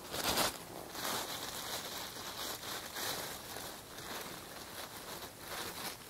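Rustling and crackling of a person moving through forest undergrowth, with a sharp rustle just after the start and a longer stretch of rustling from about one to four seconds in.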